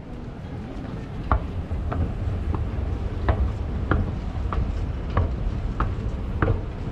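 Escalator running under a rider: a steady low rumble that sets in about a second in, with a sharp click about every 0.6 seconds.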